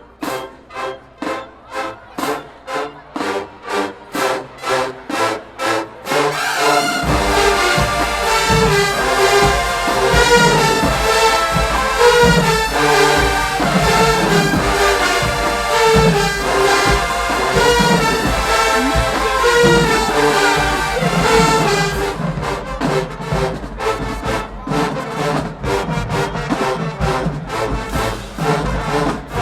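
HBCU marching band brass section playing a slow R&B arrangement. It opens with short chords hit evenly, about two a second, then the full band swells in about seven seconds in, with sousaphones and drums underneath. The bass drops away again near the end, leaving the repeated brass hits.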